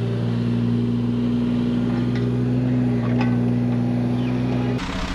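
A construction machine's diesel engine running steadily at an even pitch. Near the end the sound cuts abruptly to a rougher, noisier engine sound.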